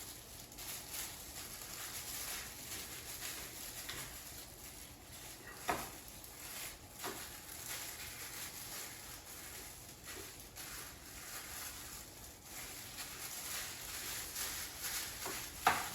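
Raw chicken tenders slick with olive oil being tossed and turned over, a soft wet squishing and rustling with a few light clicks.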